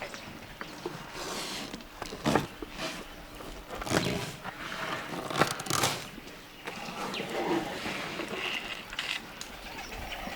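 Elephants feeding in trees and brush: a run of sharp cracks and snaps of branches with rustling in between.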